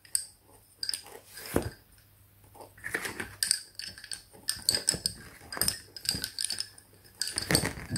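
Lace bobbins clacking against one another as the pairs are crossed and twisted, an irregular run of light knocks.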